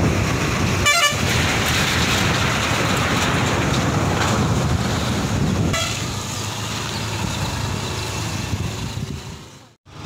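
Motorcycle ride with steady engine and wind noise, and a short run of vehicle horn toots about a second in and again near six seconds. The sound cuts out briefly near the end.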